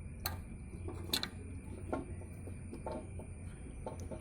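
About five faint clicks and taps of small plastic parts, roughly a second apart, as the indicator buzzer is pushed down onto its connector pins and refitted in a Honda Activa's front panel, over a low steady hum.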